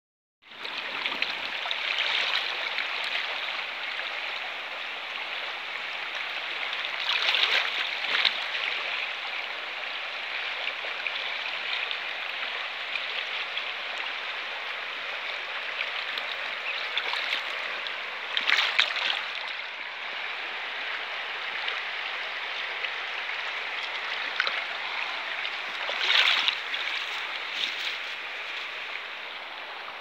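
Shallow river rushing over a riffle: a steady hiss of flowing water that swells louder a few times.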